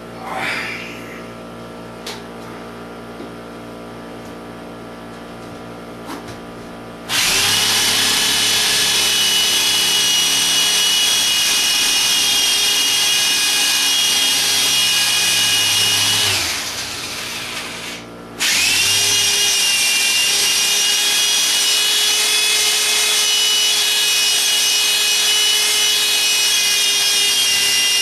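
Electric drill boring into a concrete-block wall, run at full speed in two long stretches. It spins up about seven seconds in, winds down and stops briefly, then starts again with a steady whine as the bit works slowly through the block.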